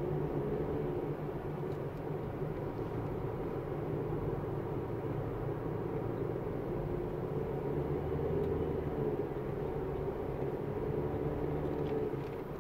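Steady engine and road noise of a car driving, heard from inside its cabin: a continuous low hum and rumble.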